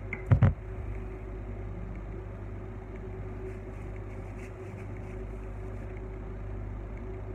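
Steady low machine hum, with a brief sharp knock or clatter about half a second in.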